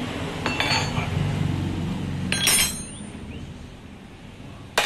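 Metal hand tools clinking with a short ringing sound as a wrench works the front axle nut of a scooter. There are three clinks, about half a second in, about two and a half seconds in, and near the end.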